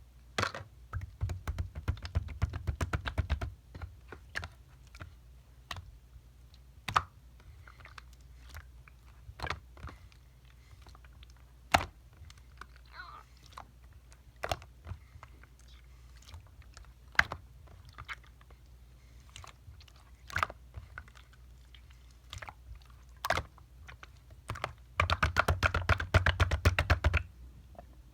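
Clear, colourless slime being squished and pressed, giving sharp clicking pops: dense runs of rapid clicks for the first few seconds and again near the end, with single pops scattered between.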